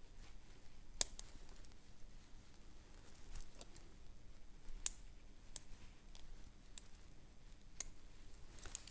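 Faint metallic clicks and light scraping of a lock pick working the pins of a Corbin padlock under tension wrench pressure, with a handful of sharper ticks about 1, 5, 5.5 and 8 seconds in.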